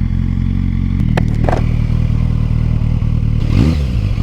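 Kawasaki Z900 inline-four with an aftermarket exhaust idling steadily just after starting, then revved briefly up and back down near the end.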